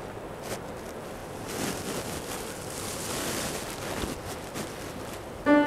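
Quiet room tone of faint rustles and a soft hiss that swells and fades through the middle. A piano chord starts right at the end.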